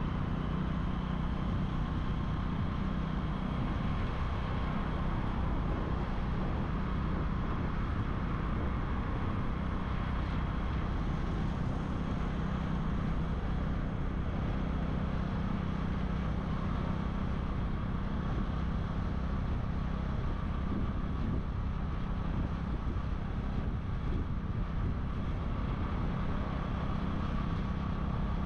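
Motorbike engine running at a steady speed during a ride, a low, even drone.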